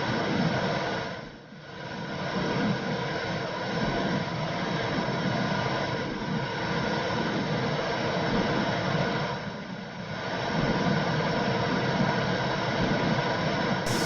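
Womb sound for soothing a baby: a steady whooshing rush of noise like blood flow heard from inside the womb. The level dips briefly twice, about a second and a half in and near ten seconds.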